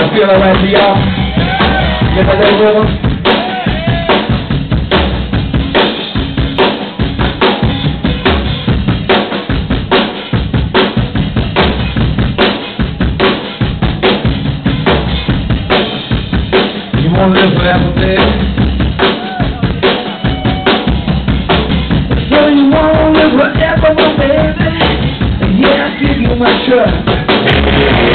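A live rock band in a drum-heavy, instrumental stretch: loud, driving kit drumming on kick and snare, played by two drummers, with other instruments coming in and out over it. The recording is distorted and dull from being made too close to the PA speakers.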